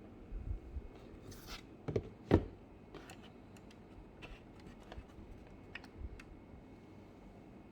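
Hands handling a 1:18 scale diecast model car and its packaging: scattered light clicks and rubbing, with two sharper knocks about two seconds in, the second the loudest.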